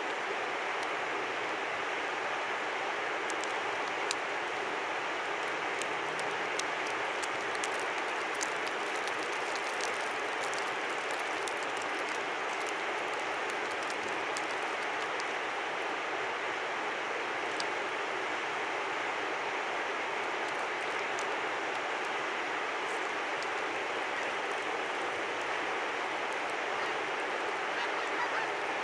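Steady rush of a river, with a scattering of faint sharp ticks over it, most of them in the first half.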